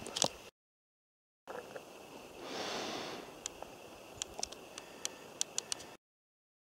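Faint outdoor forest ambience, cut out to dead silence twice by edits: a soft rush of noise about two and a half seconds in, then a run of short, sharp, faint ticks.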